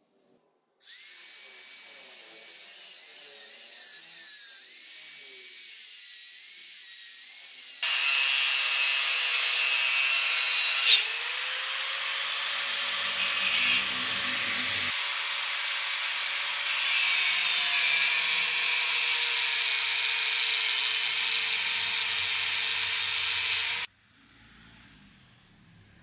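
Small grinder with a cut-off disc cutting a small piece of mild steel held in a vise: a steady, high-pitched grinding hiss over the motor's whine, which dips briefly in pitch as the disc bites. It starts about a second in and cuts off suddenly near the end.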